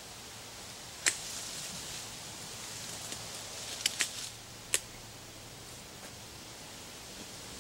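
Leafy branches rustling as fallen brush is pulled and broken by hand, with sharp cracks of snapping wood: a loud one about a second in and three more around four to five seconds in.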